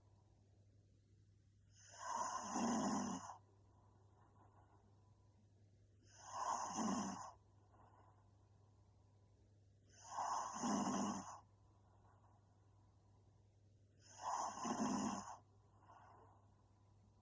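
A woman snoring in her sleep: four snores, each about a second long, coming about every four seconds, with quiet breathing between them.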